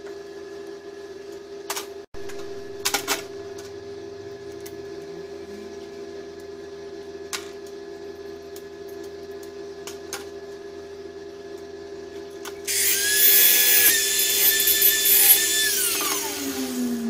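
A small electric power tool spins up and runs at high speed with a steady high whine for about three seconds, then winds down with falling pitch. Before it, a few light clicks and knocks of metal parts being handled.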